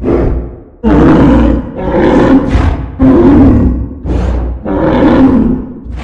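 Reconstructed Triceratops call: a series of deep rumbling calls, about one a second, each starting abruptly and fading away.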